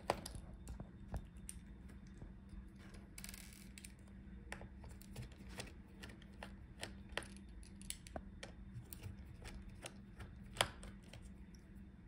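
Faint, scattered clicks and ticks of a small screwdriver backing out the tiny screws that hold a laptop motherboard, with a sharper click about ten and a half seconds in. A faint steady low hum runs underneath.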